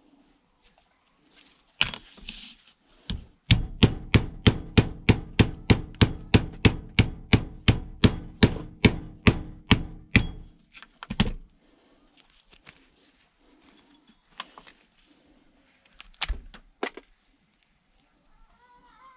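Hammer blows in a fast, even run, about three or four strikes a second for roughly seven seconds, each with a short low ring, with a few single knocks before and after. This is the sound of breaking into the sealed casing of an electric toothbrush to scrap it.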